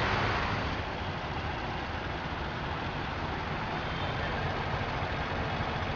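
Street traffic noise from buses and cars standing close by: a steady low engine rumble under an even hiss.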